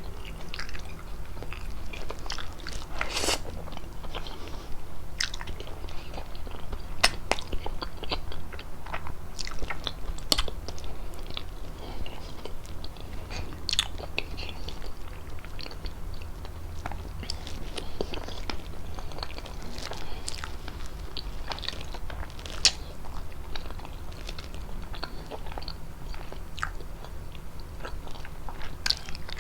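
Close-miked chewing and mouth sounds of eating fettuccine with chicken, with irregular sharp wet clicks and smacks over a faint low hum.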